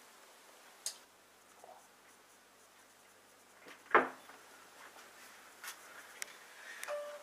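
Quiet kitchen room tone with objects being handled on a countertop: a light click about a second in and one sharp knock about four seconds in. Short steady beep-like tones start just before the end.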